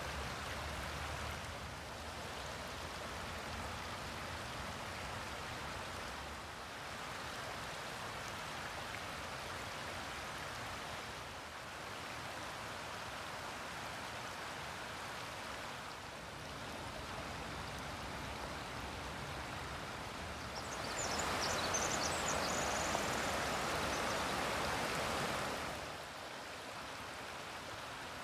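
Shallow creek running over a stony bed: a steady rush of water whose level shifts every few seconds. It is louder for about five seconds near the end.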